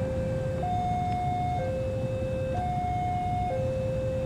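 Electronic two-tone railway warning alarm, a low and a higher tone alternating about once a second, over a steady low rumble.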